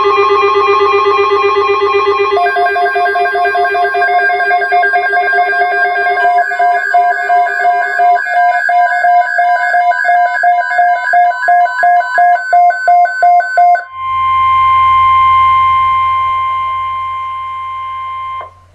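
About fourteen seconds of music made of layered, pulsing electronic tones, followed by the NOAA Weather Radio 1050 Hz warning alert tone: one steady tone with a low hum under it, lasting about four and a half seconds and cutting off suddenly. The alert tone heralds a broadcast emergency weather message.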